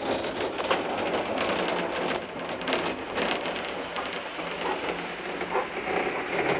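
Footplate noise of the Kitson & Co 0-6-0T steam locomotive A.No.5 in steam: a steady rushing with irregular clatter and small knocks.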